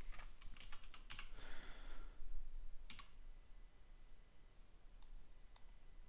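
Quiet, scattered clicks of a computer keyboard and mouse.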